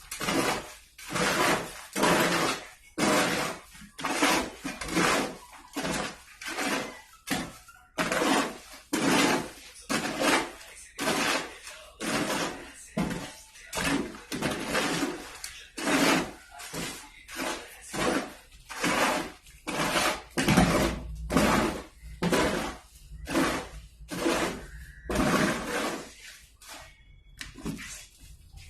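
A metal hand tool working on masonry in a steady rhythm: short, ringing strokes of metal on concrete or plaster, about one and a third a second.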